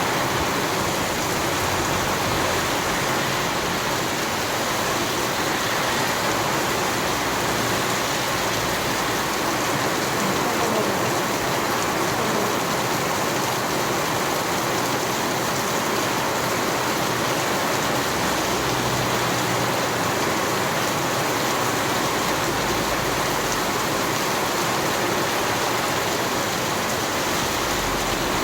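Steady heavy rainfall pattering on a road and surfaces, an even unbroken hiss with faint low rumbles now and then.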